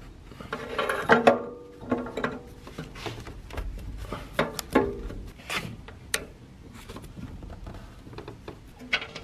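Irregular clicks and knocks of a metal oxygen-sensor socket and ratchet being worked onto a post-catalyst O2 sensor on a twin-turbo V8's exhaust, ready to break the sensor free.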